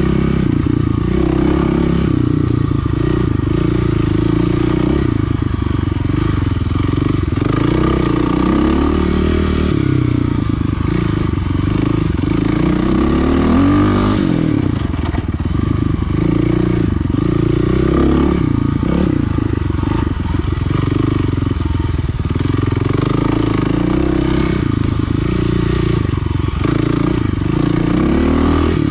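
Kawasaki KLX300R's single-cylinder four-stroke engine being ridden hard, the revs rising and falling every second or two as the throttle is opened and closed.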